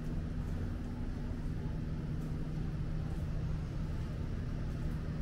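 Steady low mechanical hum, with two constant tones over a low rumble, from a running engine or motor.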